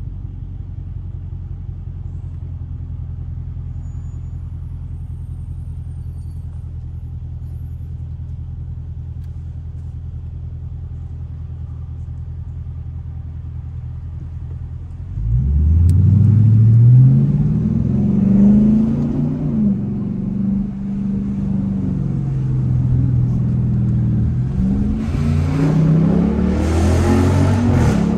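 Straight-piped 2021 Dodge Durango R/T's 5.7-litre HEMI V8, heard from inside the cabin. It idles with a steady low rumble, then about fifteen seconds in it accelerates hard and gets louder. The revs rise and fall through several gear changes, with another hard pull near the end.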